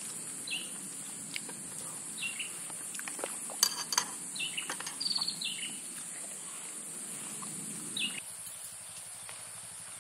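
Birds giving short falling chirps over a steady high-pitched hum, with a few sharp clicks of plastic bowls and utensils being handled about a third of the way in.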